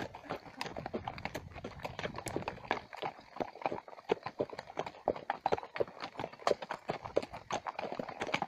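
Horses' hooves clip-clopping at a walk on a stony dirt track: an uneven run of sharp clicks, several a second, from several horses at once.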